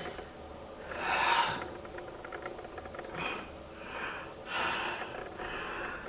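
A man breathing heavily and sniffing through his nose in a series of breathy rushes, the loudest about a second in, then several shorter ones.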